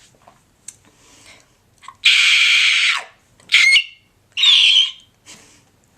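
A woman's inward scream: air sucked in hard through the throat, making a shriek like a pterodactyl or an eagle. It comes three times: one long, hissing screech about two seconds in, then two shorter ones with a high squeal in them.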